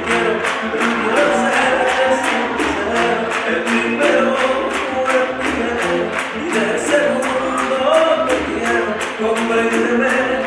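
Bachata song playing loudly: a singing voice over a steady, evenly repeating percussion beat.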